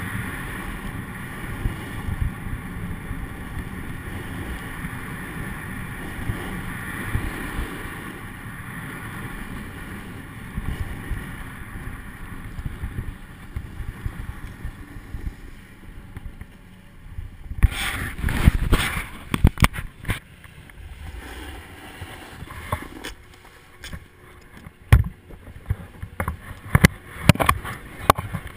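Snowboard sliding and scraping over snow, with wind rushing on the microphone. About 17 seconds in the steady rush stops and gives way to scattered knocks and scuffs as the board slows and shuffles.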